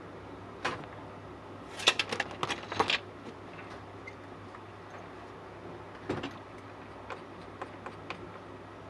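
Light clicks and clatters of small hard objects being handled, with a burst of clattering about two seconds in and another click about six seconds in, over a low steady hum.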